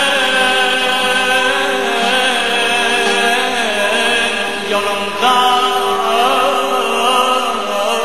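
Azerbaijani music: an ornamented, wavering melody over a steady held drone.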